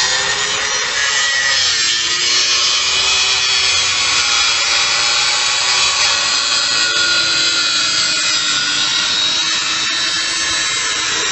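Handheld angle grinder with a cutting disc slicing into the metal casing of a Royal Enfield Meteor 350's muffler and catalytic converter: a continuous loud grinding rasp over a motor whine that wavers in pitch as the disc bites.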